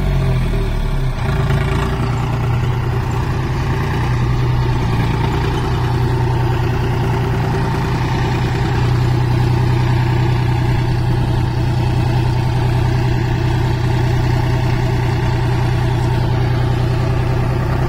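John Deere 5036D tractor's three-cylinder diesel engine running at a steady, even speed.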